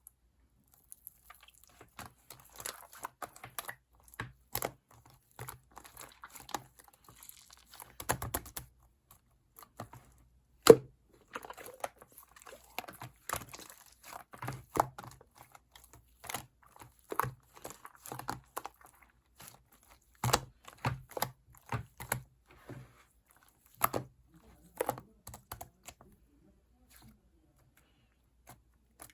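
Irregular clicking and tapping with some rustling, as of small objects handled close by in a small room; the louder knocks come about eight and ten seconds in.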